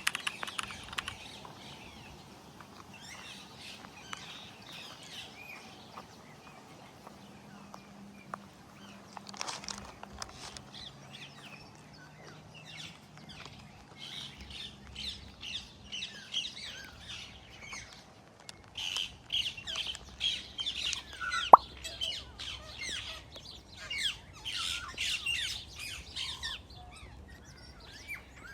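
Many small birds chirping and twittering together, growing busier in the second half, with one sharp click about two-thirds of the way through.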